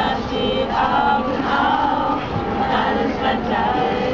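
Voices singing a slow, chant-like melody with held notes.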